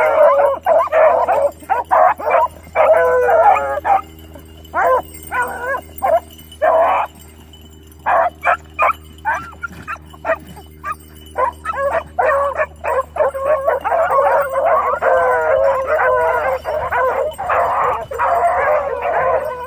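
A pack of about nine beagles baying and chopping on a rabbit's track, many voices overlapping. The cry thins to scattered single chops with a short lull a few seconds in, then swells back into full cry for the last several seconds.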